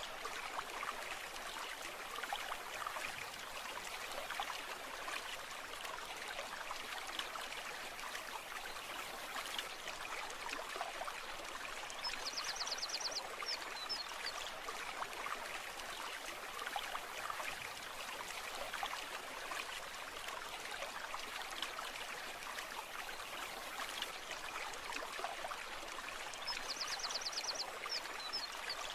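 Stream water flowing and trickling steadily. A short high rapid trill sounds twice, once near the middle and once near the end.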